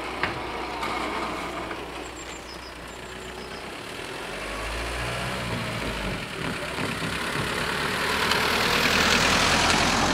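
Passenger car driving over the level crossing and past: a low engine hum comes in about four seconds in, then tyre and road noise swells to its loudest near the end. One sharp click just after the start.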